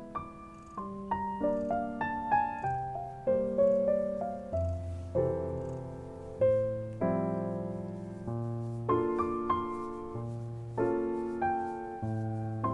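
Background piano music: a slow, gentle melody of struck notes that ring and fade, over low bass notes.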